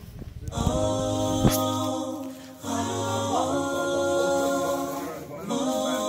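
Background a cappella vocal music: sung voices, with no instruments, holding long steady notes, and short breaks between phrases about two and a half and five and a half seconds in.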